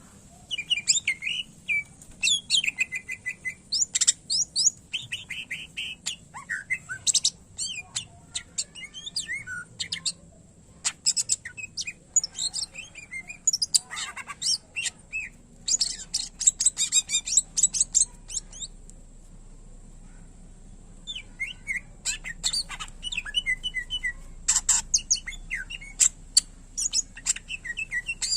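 Greater green leafbird (cucak ijo) singing a rapid, varied song of chirps, trills and sharp whistled phrases mixed with mimicked calls of other birds. The song breaks off for about three seconds past the middle, then resumes.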